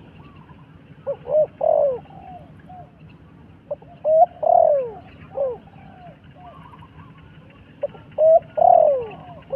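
A dove cooing: three multi-note coo phrases about four seconds apart, each ending in a longer falling note. Faint chirping birds sound behind them.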